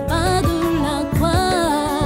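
Background music: a sung melody with vibrato over bass and a regular drum beat.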